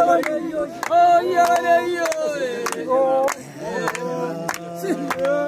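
Group of Samburu men singing a cappella together in a traditional chant, several voices layered on held notes, with sharp clicks scattered through.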